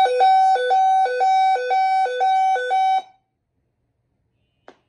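Simplex 4100ES voice evacuation system's alert tone through a ceiling speaker: a high tone alternating with a lower one about twice a second, stopping suddenly about three seconds in. It is the lead-in to the active shooter voice message. A faint click comes near the end.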